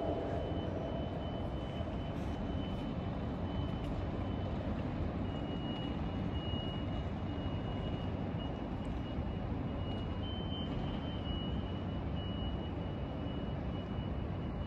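Steady railway-platform rumble around an electric train, with a thin high-pitched tone that holds most of the time and breaks off now and then.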